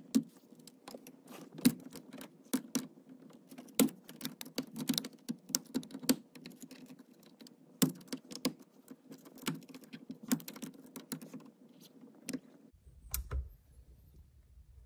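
Two flathead screwdrivers clicking and scraping against the steel retaining clip and lock plate of a steering column as the clip is pried at, in quick irregular clicks. The clicking stops near the end.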